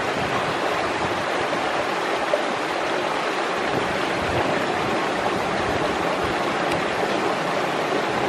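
Running stream water making a steady rushing noise.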